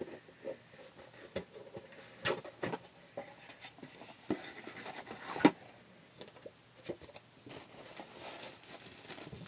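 A cardboard subscription box being opened and its packed contents handled: scattered rustling and scraping with a few sharp taps and clicks, the loudest about five and a half seconds in.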